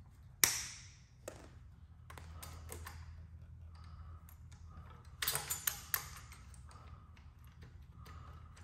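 Small metallic taps and clicks from hands fitting the rear Tektro hydraulic disc brake caliper on a fat-tire e-bike: one sharp, ringing tap about half a second in, and a quick run of clicks about five seconds in, over a low steady hum.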